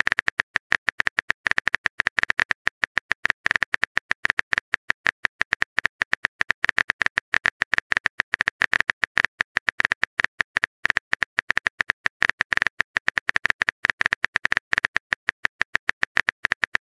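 A rapid, uneven run of phone-keyboard typing clicks, many a second without a break: the texting app's typing sound effect.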